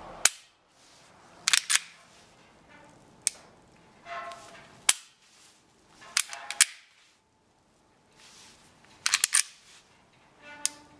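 Taurus G2C pistol fitted with a flat-face trigger being dry-fired by hand: a series of sharp metallic clicks, some in close pairs or quick clusters, every second or two.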